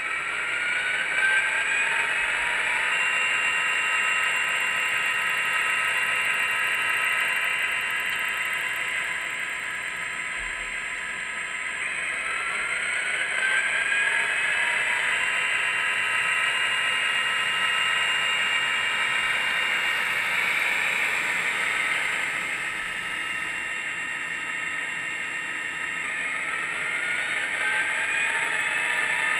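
Digitrax sound decoder in an Athearn SD40-2 model locomotive playing its diesel prime mover sound through the model's small speaker, at maximum prime mover volume, as the model runs along the track. The engine sound rises in pitch a few times as it revs up.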